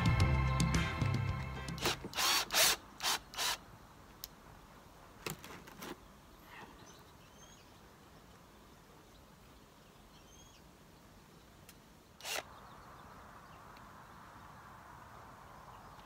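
Background music fading out over the first two seconds, then a few short whirs from a cordless drill driving screws into the weather vane post, and one more about twelve seconds in. Faint bird chirps in the quiet between.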